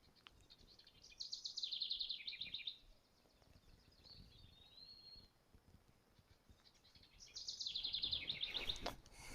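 A songbird singing: two fast, high trilled phrases several seconds apart, with a thin whistled note between them.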